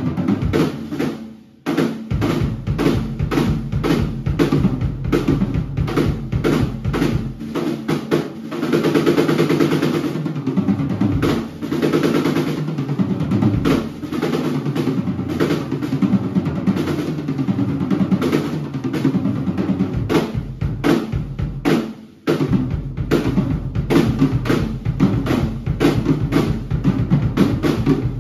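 A Gretsch drum kit played hard: fast, dense hits on the bass drum, snare and toms, with short breaks about two seconds in and again about 22 seconds in.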